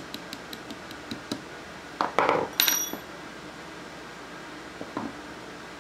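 Light hammer taps on a steel punch, about four a second, driving the trigger pin out of an Ithaca Model 49-S receiver. About two seconds in comes a short rattle, then the freed pin drops onto the bench block with a bright, ringing metallic clink.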